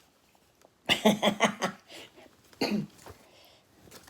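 A woman coughing, a quick run of short coughs about a second in, then one more cough shortly after.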